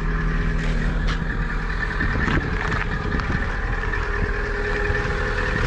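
Lada Vesta's four-cylinder petrol engine idling steadily just after a cold start at minus 8 °C, with no whistle from the alternator belt now that the tensioner roller has been replaced.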